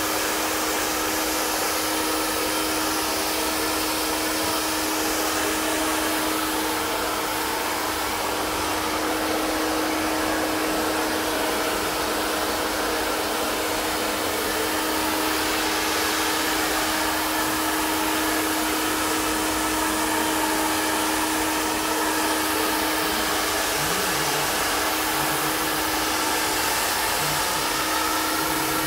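Prife iTeraCare health blower, a handheld hair-dryer-like device, running steadily: an even rush of air from its fan with a constant low hum.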